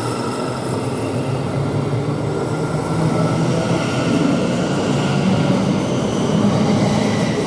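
Class 700 Thameslink-type electric multiple unit pulling out of the station: a steady rumble of wheels and running gear, with a low traction hum that rises slowly in pitch as the train gathers speed.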